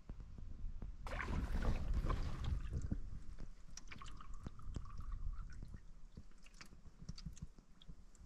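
Canoe paddle stroking through lake water: a swishing splash about a second in, then water dripping and trickling off the blade with many small clicks and drips.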